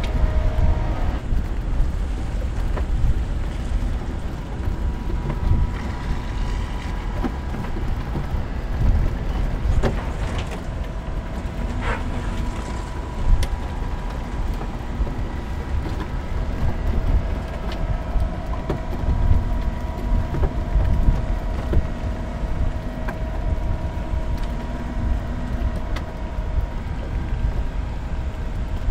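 Mercedes-Maybach G 650 Landaulet's twin-turbo V12 running as the truck drives slowly over a dirt track: a steady low rumble with scattered clicks and knocks.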